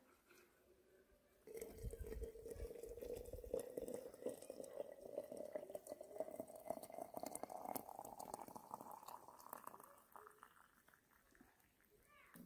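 Water poured from a metal kettle into a porcelain teapot of loose tea leaves to brew tea. The stream starts about a second and a half in, and its pitch rises steadily as the pot fills. It thins to a trickle about ten seconds in.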